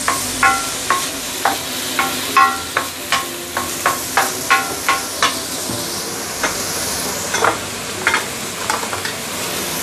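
Carrot strips sizzling in hot oil in a stainless steel wok, with a wooden spatula knocking and scraping against the metal so the pan rings briefly at each stroke. The strokes come several times a second at first and thin out in the second half, leaving the steady sizzle.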